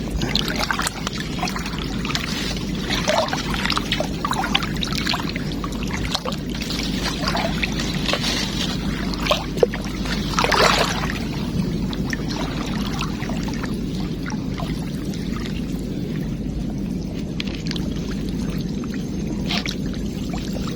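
Floodwater pouring and running steadily, with irregular splashes over it in the first half, the loudest about ten seconds in.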